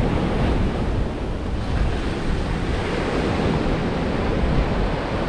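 Waves breaking and washing up a sandy beach, with wind buffeting the microphone.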